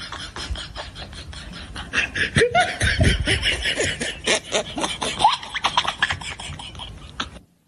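Laughter over rapid rhythmic clicks, the laughing getting louder about two seconds in; the sound cuts off abruptly near the end.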